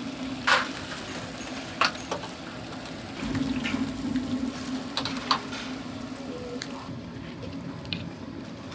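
Kitchen noise: a steady hiss over a low hum, with several short, sharp clatters, the loudest about half a second and two seconds in.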